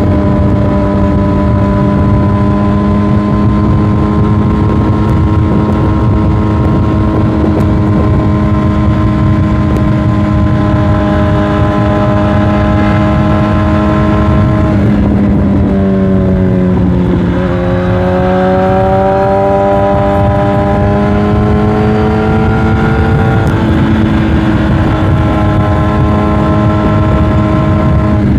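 2006 Yamaha YZF-R1's 998 cc inline-four engine running under way at steady revs, with wind rumble on the microphone. About halfway through, the revs dip and then climb back up.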